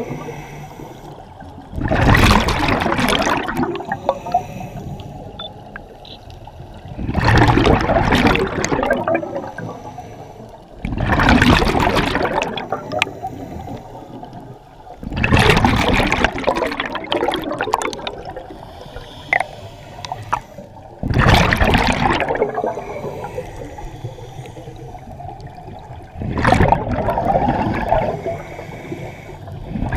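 Scuba diver breathing through a regulator underwater: six loud rushes of exhaled bubbles, about one every five seconds, with quieter stretches between.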